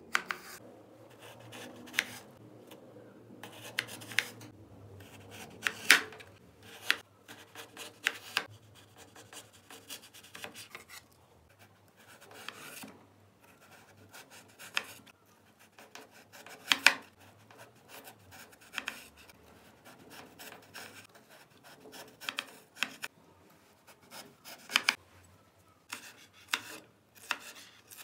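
Large kitchen knife slicing a peeled raw potato on a bamboo cutting board: the blade scrapes through the potato and knocks sharply on the board at uneven intervals, every second or two.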